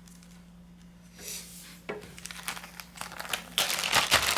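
Parchment paper crinkling and rustling as it is handled, getting denser and louder in the last second or so.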